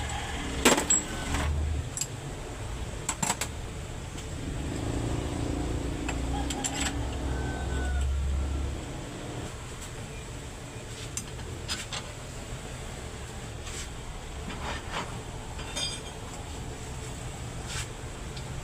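Scattered sharp metallic clinks and knocks over a low rumble, which swells for a few seconds near the middle and then drops back.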